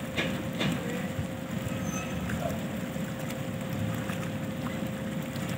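Steady low rumble of the moored passenger ship Umsini's engines, with a constant droning hum over it and two faint knocks within the first second.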